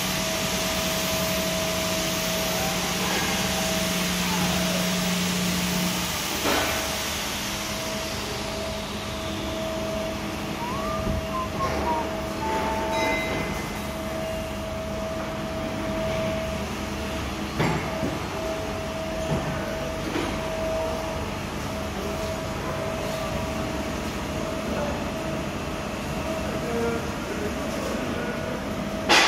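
Steady machine hum with a whine from a robot arm tending a Mazak Quick Turn 350MY CNC lathe, with a hiss that fades out over the first several seconds. A few scattered clicks and clanks, and a sharp knock near the end.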